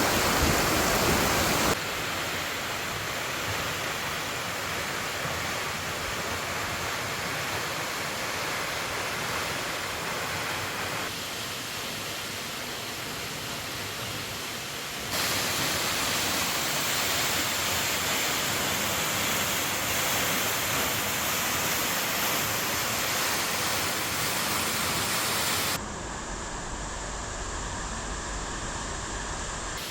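Steady rushing water of the Tanashita Fudo waterfall, shifting abruptly in loudness and tone several times where shots are cut together.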